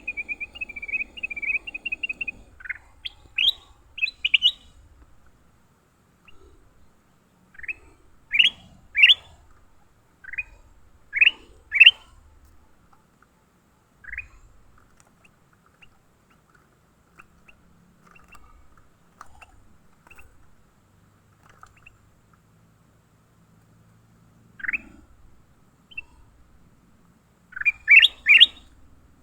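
Small songbird calling: a short warbling phrase at the start, then clear, sharply rising chirps, mostly in pairs and triplets, with gaps between them and a quick triplet near the end.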